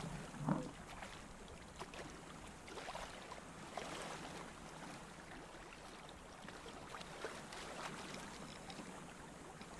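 Small waves lapping at a rocky lakeshore, a soft steady wash, with a few faint scattered clicks and scrapes.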